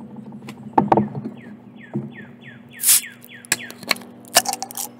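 Bottle opener prying the metal crown cap off a glass beer bottle. A quick run of short scraping squeaks comes first, then a brief hiss about three seconds in and several sharp metal clicks.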